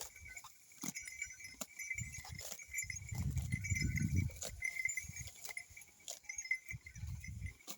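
Ghungru bells on a bullock jingling steadily as the animal moves, with sharp clinks now and then. Heavier low rumbling swells in twice, once in the middle and again near the end.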